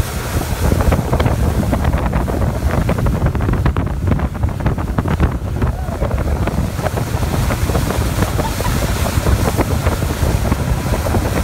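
Wind buffeting the microphone over a motorboat's outboard engine running at speed and the rush of the churning wake.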